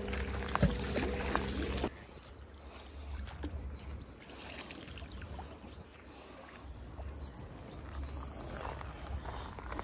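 Background music cuts off about two seconds in. After that come faint water splashing and rope handling as a magnet-fishing magnet is hauled up out of the water on its rope, over a low rumble.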